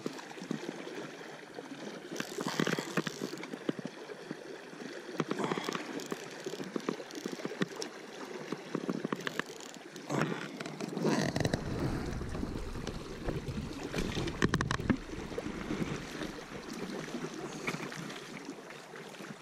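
River current rushing and splashing, with scattered louder splashes. A low rumble joins about eleven seconds in.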